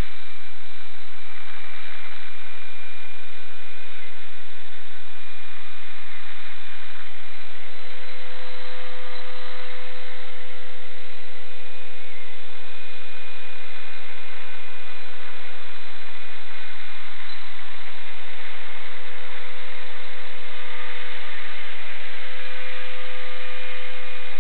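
EXI-450 electric RC helicopter running with its rotors spinning: a loud, steady rushing noise with a steady motor whine that drifts slightly in pitch.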